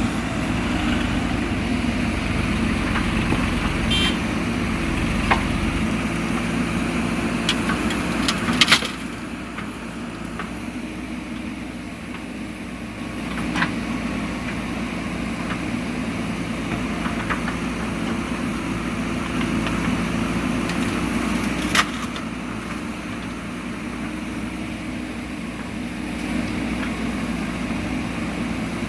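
Heavy machine's diesel engine running steadily, dropping a little in level about nine seconds in, with a few sharp knocks on top.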